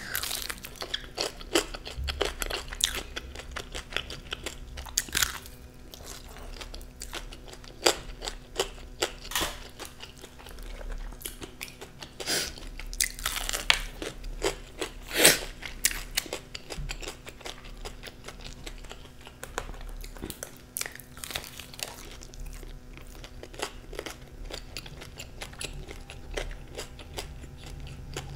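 Close-miked biting and chewing of crispy fried chicken: sharp crunches of the breaded crust over wet chewing. The crunches come thick and loud in the first half, the loudest about halfway through, then thin out to mostly chewing.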